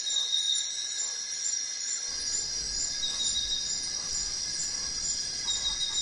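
A chorus of tropical forest insects shrilling steadily in several high pitches at once, some pulsing evenly, with a few faint chirps.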